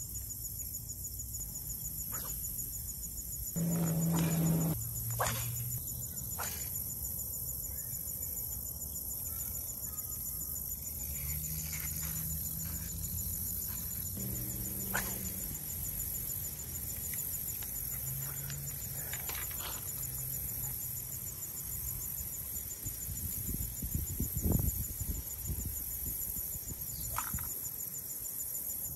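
Steady high-pitched chirring of insects, with a fast even pulse, under scattered faint clicks. A louder low hum about four seconds in, and a few low thumps a little before the end.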